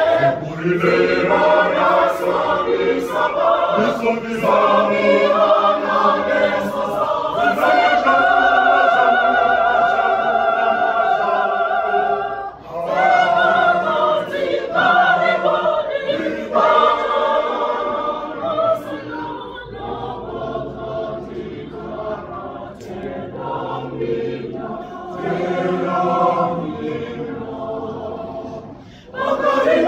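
Mixed men's and women's church choir singing in parts, with long held notes. The singing briefly dips between phrases about twelve seconds in and again near the end.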